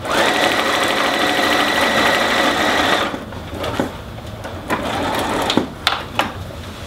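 Bernina sewing machine stitching steadily at speed through vinyl-laminated fabric and reflective tape, then stopping abruptly about three seconds in. A few light clicks follow as the fabric is handled.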